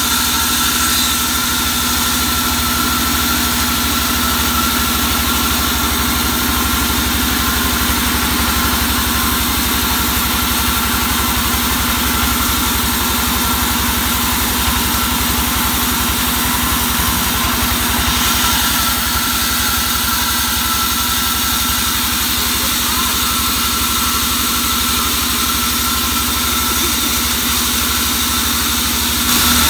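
Vertical band sawmill running steadily while its blade rips a log lengthwise, giving a constant machine drone with a steady high whine and hiss.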